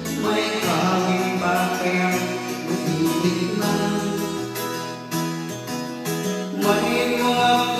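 A man singing into a handheld microphone over a backing music track.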